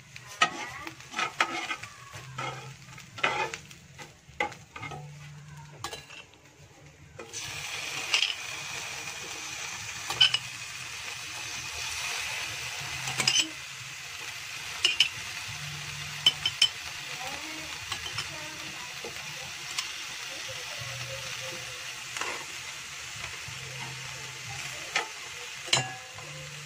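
Ham pieces frying in a nonstick frying pan. Scattered clicks and taps for the first several seconds, then a steady sizzle from about seven seconds in. Sharp clicks and taps run through the sizzle as pineapple chunks and green pepper strips are dropped in.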